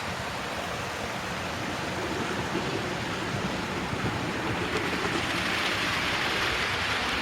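Model train running along the layout's track: a steady rumbling whir of wheels on rail that grows louder about five seconds in as it passes close, then eases slightly.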